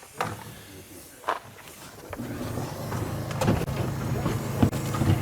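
A motor or engine starts humming steadily about two seconds in and slowly grows louder, with a few sharp knocks over it.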